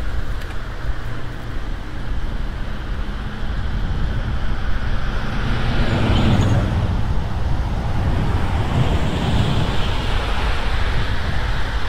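Wind rushing over the microphone of a moving bicycle, mixed with road traffic; the noise swells as a vehicle passes about six seconds in.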